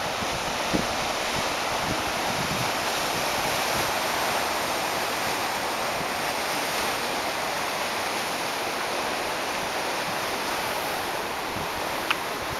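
Steady wash of Pacific surf breaking on coastal rocks, with wind gusting on the phone's microphone.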